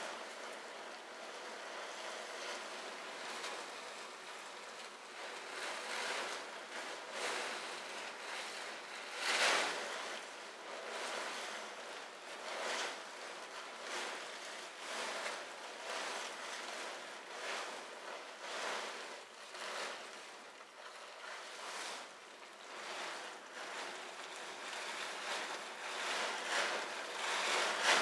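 Large plastic tarp rustling in repeated swells as it is swung over and draped across a horse, with a few louder sweeps.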